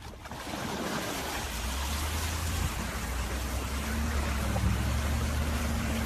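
Steady rushing noise of wind and water spray over a low engine drone, from a pickup truck towing a rider on a board through a water-filled ditch.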